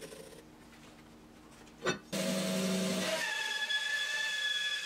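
A brief knock, then from about two seconds in a bandsaw running with a steady, high whine over a hiss.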